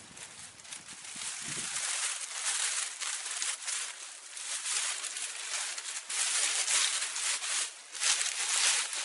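Dry leafy branches and dead leaves rustling and crackling as they are handled and piled onto a brush shelter, in uneven bursts that grow louder in stretches toward the end.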